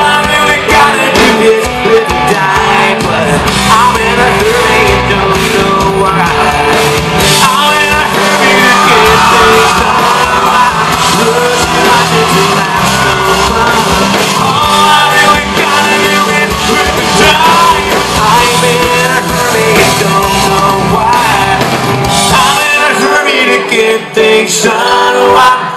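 Loud live band music with singing and some shouts from the crowd.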